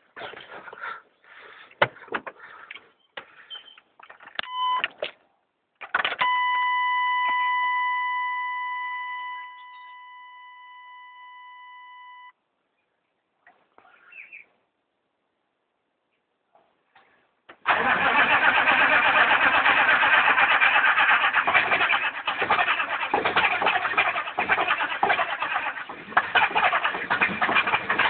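Chevy 6.5L turbo diesel cranking on its starter in the cold, a long crank of about ten seconds without settling into a run: a hard start despite new glow plugs. Before it come a few clicks and knocks, a steady electronic warning tone lasting about six seconds, and a pause of several seconds.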